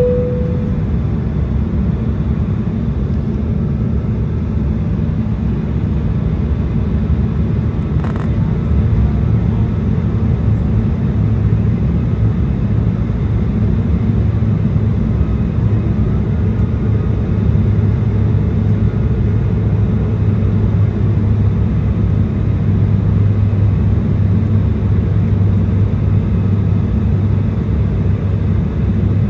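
Steady cabin noise of an Embraer 175 on approach: the low drone of its General Electric CF34 turbofan engines and airflow past the fuselage, heard from a window seat over the wing. A low hum settles in about nine seconds in, and a single brief click comes just before it.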